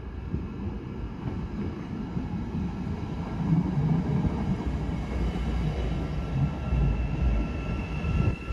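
Matangi electric multiple unit running in along a station platform and passing close by, a heavy rumble of wheels and running gear that builds as it nears. About five seconds in, a steady high squeal sets in and grows louder.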